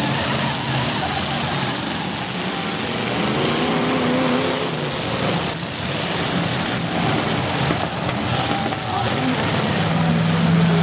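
Full-size demolition derby cars' engines running and revving together in a continuous din, with a few knocks of car bodies hitting about halfway through.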